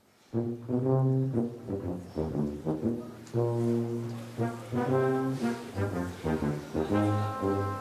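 A brass instrument playing a melody of held and shorter notes, starting about a third of a second in.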